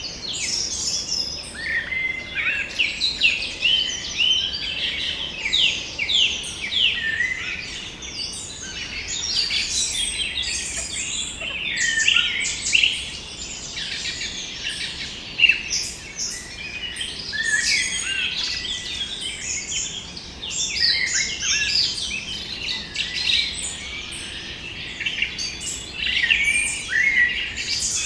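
A dense chorus of many songbirds chirping and singing at once, short quick notes overlapping continuously, over a faint steady hiss of background noise.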